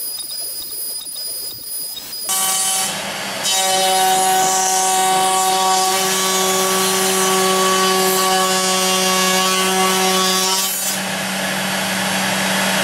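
CNC router's spindle running with a steady high whine, then about two seconds in the bit starts cutting wood: a loud steady cutting noise with a hum in it that grows louder a second later. Near the end the hum drops out and a rougher cutting noise carries on.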